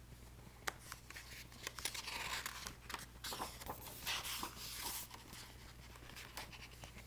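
Paper rustling and crinkling with small clicks, typical of a picture book's pages being handled and turned.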